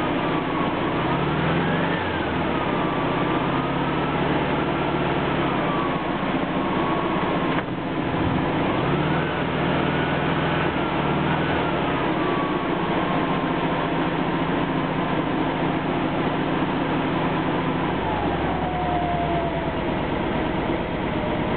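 1956 Volkswagen Beetle's 36 hp air-cooled flat-four engine, running again after decades of storage, being revved by hand at the carburettor. The engine speed rises and falls for most of the time, then drops back to a steady, lower idle near the end.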